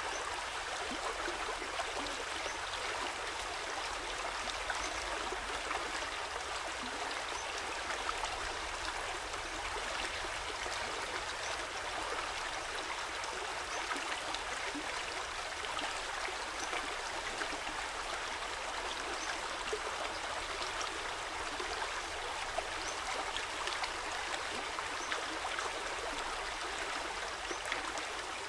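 Steady running water: a constant rushing and trickling, like a small stream.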